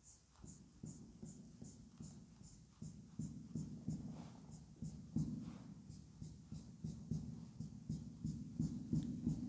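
Whiteboard marker scratching across a whiteboard in quick short hatching strokes, about three strokes a second.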